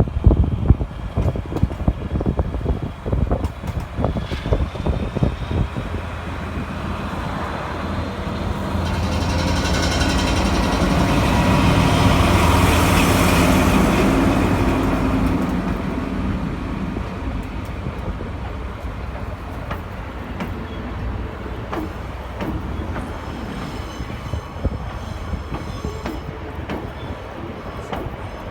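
A DE10 diesel-hydraulic locomotive hauling a rake of cars passes close by. Its engine and the rail noise swell up to a peak about halfway through, then fade slowly, with a faint high wheel squeal near the end. Wind buffets the microphone in the first few seconds.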